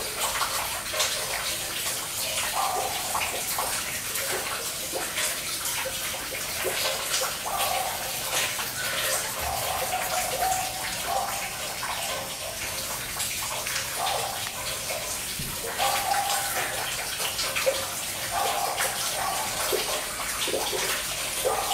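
Steady sound of running and dripping water, with many small drip-like ticks, such as rainwater running off after a light rain. A few short soft calls, likely hens clucking, come and go over it.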